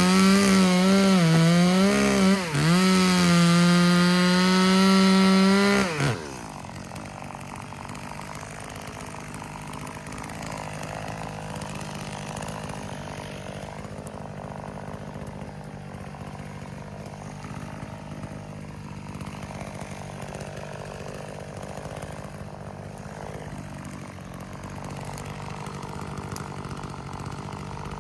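Chainsaw at full throttle cutting wood, with a brief dip in revs partway through. About six seconds in, the throttle is released and the revs fall away sharply to a much quieter, steady running.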